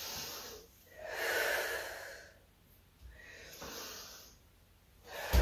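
A woman breathing audibly in and out, about four breaths, as she works through a standing Pilates twist. There is a short low thump near the end.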